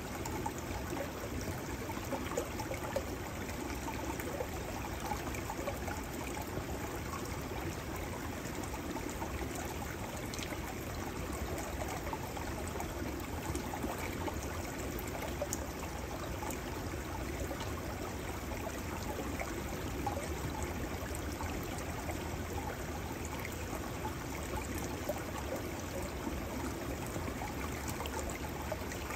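Small shallow stream flowing steadily between shelves of melting snow and ice, an even trickling of running water.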